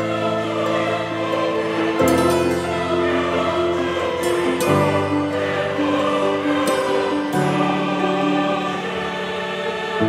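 Background music: a choir singing long held chords that change every two to three seconds.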